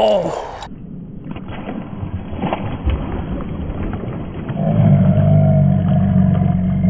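Muffled, slowed-down audio of a pike striking a topwater rat lure at the bank: dull splashing with a few knocks, then, from about two-thirds of the way in, a loud, deep, drawn-out roar-like sound.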